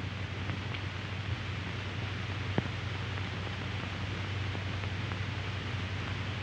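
Steady hiss and low hum of an old 1930s film soundtrack, with one faint click about two and a half seconds in.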